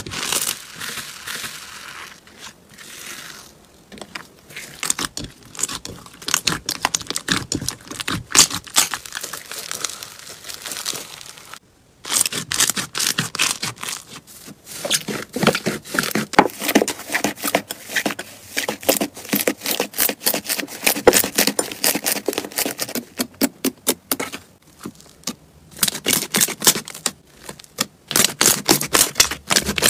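Slime being squished and stretched by hand, making rapid sticky crackles and pops. The sound breaks off briefly about twelve seconds in, then resumes louder and denser.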